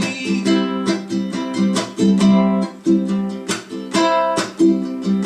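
Ukulele strumming chords in a steady rhythm, an instrumental passage of a song with no singing.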